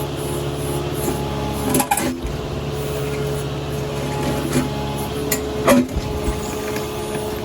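A digging machine's engine running steadily, with a few sharp knocks from the scooping work, the loudest about two and about six seconds in.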